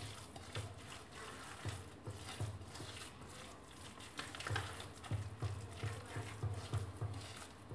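A hand mixing and kneading wet semolina and milk in a ceramic bowl: soft squishing and rubbing, with a dull bump at each stroke, as the semolina soaks up the milk for a harcha batter.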